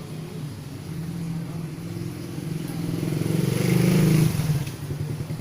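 A motor vehicle engine running, growing louder to a peak about four seconds in and then easing back.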